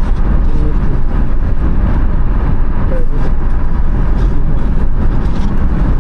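Steady, loud rumble of a car driving, heard from inside the cabin: road and engine noise with no breaks.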